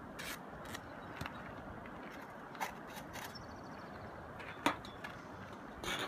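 Steady outdoor background noise with a few light clicks and taps scattered through it, the sharpest a little over two thirds of the way in.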